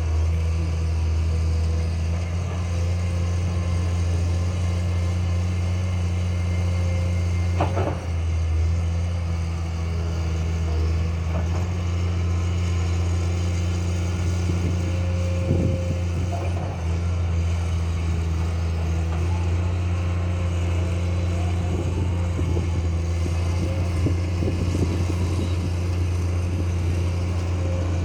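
Excavator's diesel engine running steadily at a constant speed, with a couple of brief knocks along the way.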